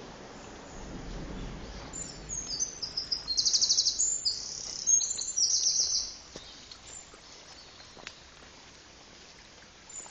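A small songbird singing a loud, high-pitched song of quick notes and rapid trills, lasting about four seconds from about two seconds in.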